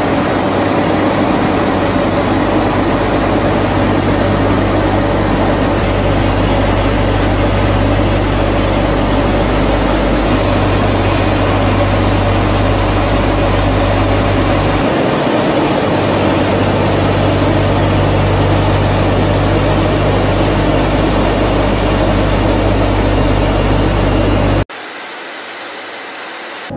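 Steady, loud drone of a Tu-95 bomber's NK-12 turboprop engines and contra-rotating propellers, heard from inside the aircraft, with a deep, even hum under a rushing noise. Near the end it cuts off suddenly to a quieter, steady cabin noise.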